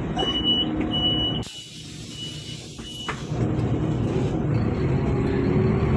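City bus heard from inside: the engine rumbling, a run of short high beeps in the first few seconds, and a hiss with the rumble dropping away for a second or two. The rumble then returns with a slowly rising whine as the bus gets moving.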